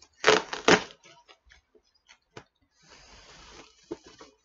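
Packing tape and cardboard being torn and pulled at by hand to open a taped box: two loud tearing sounds in the first second, then light clicks and crinkles and a longer rustle about three seconds in.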